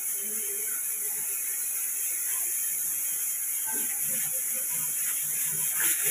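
Steady hiss from a closed aluminium pressure cooker heating on a lit gas burner, with no whistle yet.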